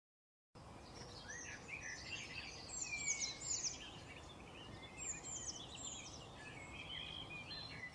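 Digital silence, then about half a second in, several small birds chirping and twittering over faint steady background noise, including a few quick downward-sweeping whistles.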